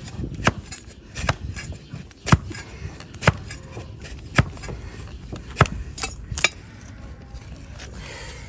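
Flat hoof-paring blade cutting slices of horn from a donkey's hoof: a sharp crack with each stroke, about eight strokes roughly a second apart, with scraping in between.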